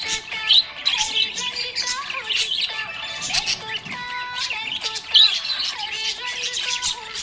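Several small pet parrots chirping and squawking continuously in quick, overlapping high calls, over background music with held notes.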